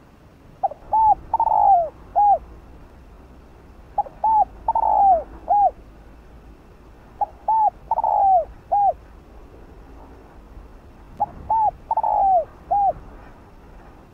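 Spotted dove cooing: four phrases about three and a half seconds apart. Each phrase is two short coos, a longer, louder coo that rises and falls, and a final short coo.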